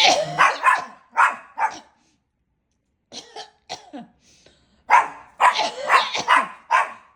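A woman coughing in harsh fits after choking on something that went down the wrong way. There is a burst of coughs at the start, single coughs after it, and a longer run of coughs near the end.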